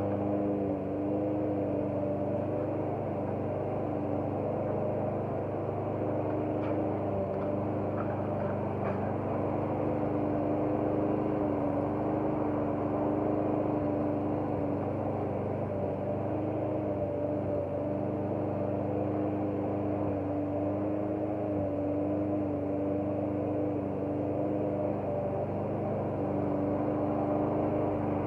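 Walk-behind gasoline lawn mower engine running steadily as it is pushed across the lawn, its pitch wavering slightly. A few faint ticks about seven to nine seconds in.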